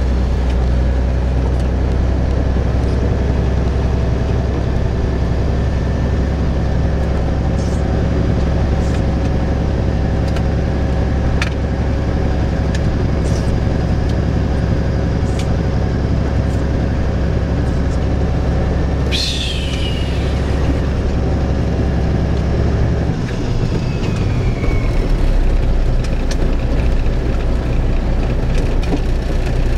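Semi truck's diesel engine running at low speed, heard from inside the cab as a steady low drone; its note drops about 23 seconds in. About 19 seconds in, a brief high squeal falls in pitch.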